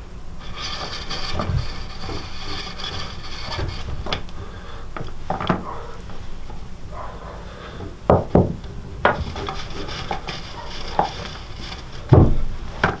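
Lacing cord being pulled through the holes of a frame drum's soaked skin, a long rubbing, sliding sound. A few knocks against the drum break in, the loudest near the end.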